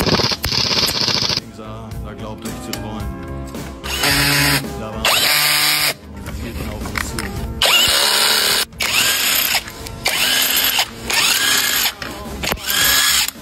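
Handheld power tool run in several short bursts of about a second each, its motor spinning up at the start of each burst, with background music.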